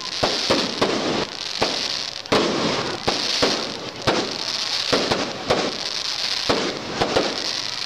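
Fireworks going off: an irregular run of sharp bangs and pops, several a second at times, over a crackling hiss that swells and fades.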